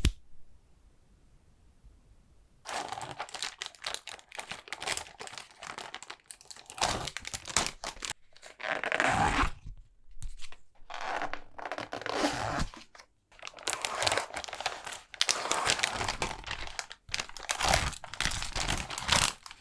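Plastic packaging crinkling and rustling in repeated bursts, with some tearing, as takeout food containers are handled and unwrapped.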